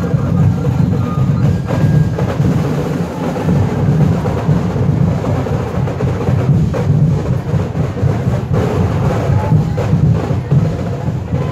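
Ati-ati tribe drum and percussion ensemble playing loud, continuous festival drumming, with big bass drums carrying a steady beat.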